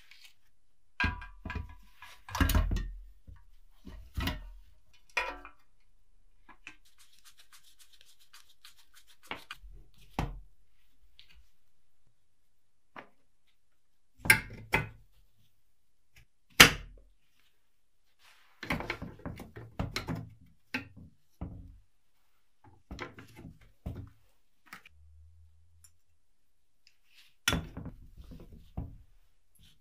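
Metal parts of a filmstrip projector being handled and fitted together by hand: scattered knocks, clicks and scrapes of the painted steel housing and lens bracket against each other and the wooden bench. About a third of the way in comes a short run of fine, rapid ticking.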